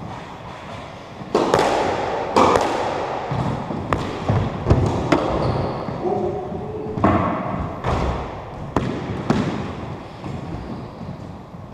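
Squash rally: rackets striking the ball and the ball hitting the court walls, a string of about nine sharp hits at uneven intervals, each echoing in the court.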